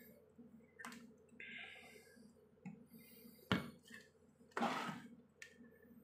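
Plastic two-way light switches clicking as they are toggled by hand, a few sharp clicks with the loudest about three and a half seconds in. About a second later comes a short rustling noise of handling.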